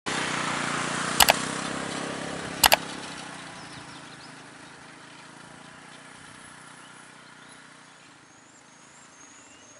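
A small motor scooter engine running close by, then fading steadily as it rides away. Two sharp double clicks about one and nearly three seconds in are the loudest sounds, and faint high chirps come in near the end.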